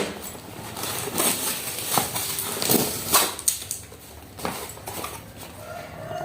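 Packaging being handled and pulled at while a parcel item is being opened: irregular rustling and crinkling.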